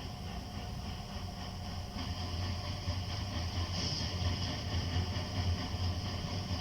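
ALCO FA-1 diesel locomotive engine idling steadily with a low rumble, growing somewhat louder about two seconds in.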